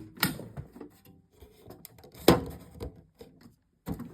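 Tools and parts being handled in a toolbox: a few separate knocks and clatters, the loudest about two seconds in.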